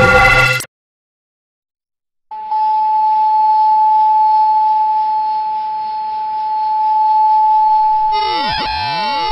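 Loud eerie music cuts off suddenly, leaving dead silence for about a second and a half; then a steady, high electronic tone sets in and holds. Near the end, several tones sweep up and down across it, like a distorted signal.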